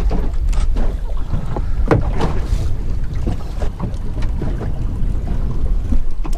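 Wind buffeting the microphone with a steady low rumble, and water slapping against the hull of a small boat.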